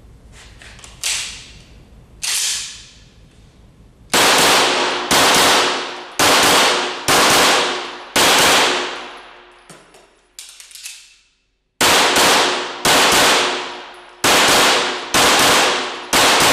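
Walther Q5 Match 9 mm Luger pistol fired shot after shot, about one a second, each report trailing off in the echo of an indoor range. Two fainter bangs come first, and the loud string starts about four seconds in.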